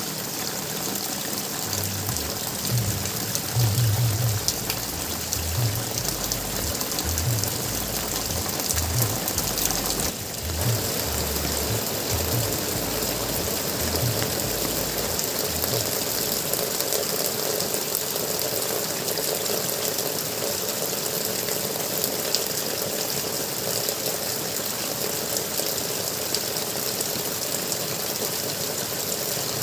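Flowing water gurgling and trickling steadily, with irregular low thumps through roughly the first half.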